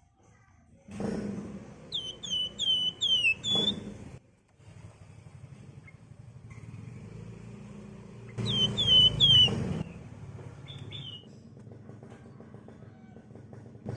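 Javan fulvettas (wergan Jawa) calling: two bursts of four or five sharp, downslurred whistled notes in quick succession, about a second in and again near eight seconds, over a low steady rumble.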